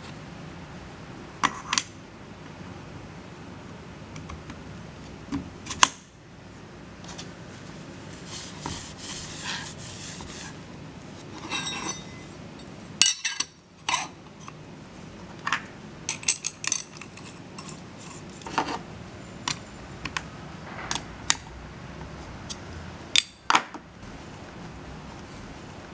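Scattered sharp metallic clinks and clicks of steel parts and tooling being handled at a thread-cutting machine, over a steady low hum.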